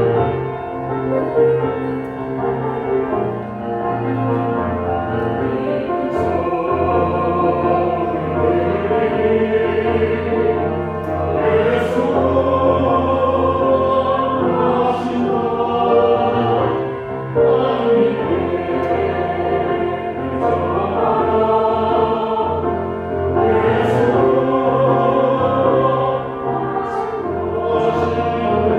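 Church choir singing a hymn in Korean, many voices holding long notes together.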